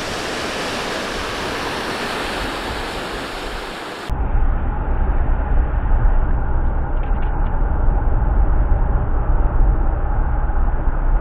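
Rushing water, like a waterfall or fast stream, as an even hiss for about four seconds. It then cuts off abruptly to a louder, uneven low rumble with the high end gone.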